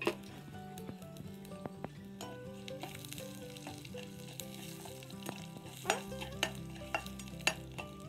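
Whole cumin seeds and peppercorns sizzling as they fry in hot coconut oil in a small wok over a wood fire. A metal spoon stirs them and clinks sharply against the pan near the start and several times near the end.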